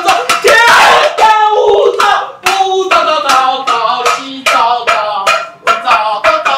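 Music made of quick, sharply struck pitched notes that change pitch from note to note, fading out near the end.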